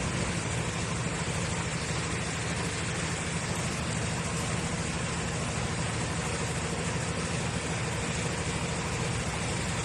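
A machine motor running steadily: an even, loud whirring hiss over a constant low hum, with no change in speed.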